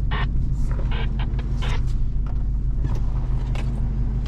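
Pickup truck engine idling, a steady low hum heard from inside the cab, with a few short, sharp sounds at irregular moments over it.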